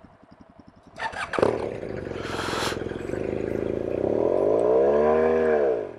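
BMW R 1250 GS boxer-twin engine ticking over, then revved hard about a second in. The revs climb and then fall away, cutting out shortly before the end, as the heavily loaded bike struggles stuck in deep black volcanic cinder sand.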